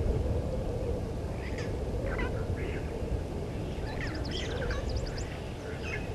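Wild birds giving short chirps and whistles, with a quick run of sharp notes about four to five seconds in, over a steady low background rumble.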